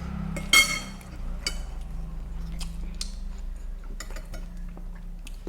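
Cutlery clinking against plates during a meal. One ringing clink comes about half a second in, followed by several lighter taps and scrapes, over a steady low hum.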